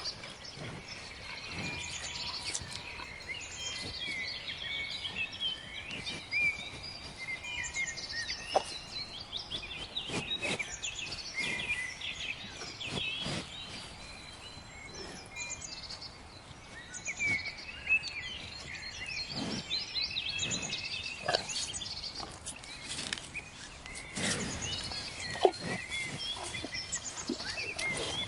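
Many small birds chirping and trilling without a break over a grassy meadow, with short crisp rustles and snaps every few seconds, typical of cattle tearing and chewing grass close by. Two of the snaps, one about a third of the way in and one near the end, are sharper and louder.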